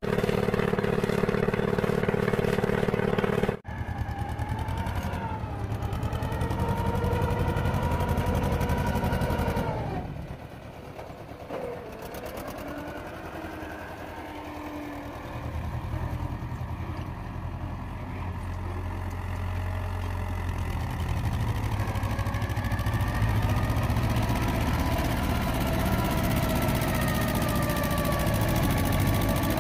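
Mahindra 255 DI tractor's diesel engine working hard, its pitch rising and falling as the rear wheels dig and spin in loose sand. A steady drone in the opening seconds cuts off abruptly. The engine dips quieter for a few seconds near the middle, then runs loud and steady again under load.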